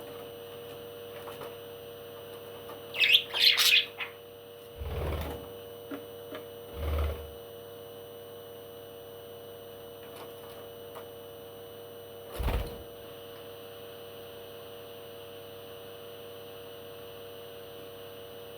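A parrot giving a quick run of loud, high chirping calls about three seconds in. This is followed by a few dull low thumps, over a steady background hum.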